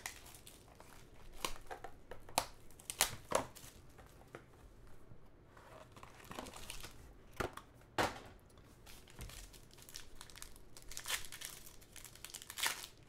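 Plastic shrink-wrap crinkling as it is stripped off a trading-card box, then the foil wrapper of the card pack inside crinkling and tearing as it is peeled open: intermittent sharp rustles and crackles.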